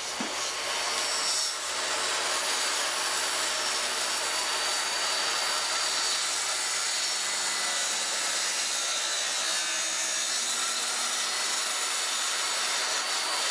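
Corded circular saw running steadily as it crosscuts a 1x12 pine board, the blade's high running noise mixed with the rasp of wood being cut.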